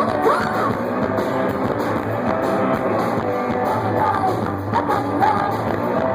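Live punk-blues rock band playing: distorted electric guitar over a steady beat, with brief sliding guitar notes.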